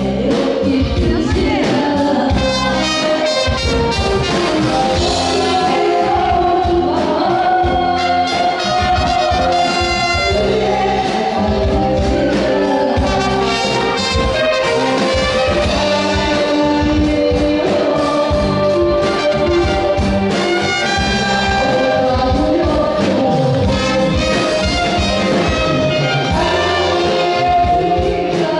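A woman singing a Korean trot song into a microphone with band accompaniment, trumpet and trombone playing along.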